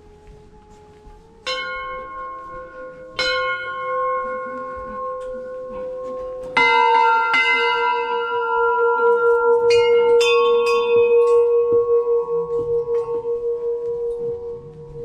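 Hanging brass temple bells struck one after another. There are single strikes about one and a half and three seconds in, then a louder strike about six and a half seconds in, followed by several quick strikes. The bells ring on with a wavering hum, fading slowly.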